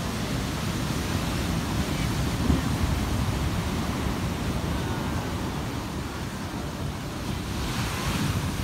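Ocean surf breaking and washing over the rocky shore, a steady rush with a louder wash of surf near the end, over a low rumble of wind on the microphone.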